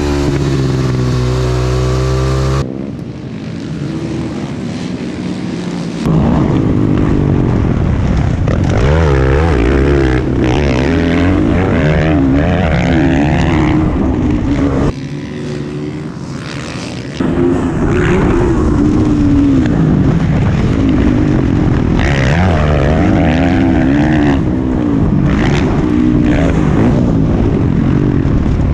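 Supermoto racing motorcycles at speed, their engines revving up and down through gear changes and braking, several bikes overlapping. The sound shifts abruptly a few times, dropping quieter for a few seconds about three seconds in and again about halfway through.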